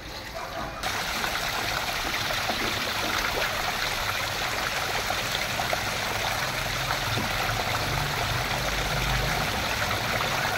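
Water gushing steadily out of the open PVC outlet pipes of a plastic water storage tank and splashing onto the ground as the tank drains; it swells up about a second in.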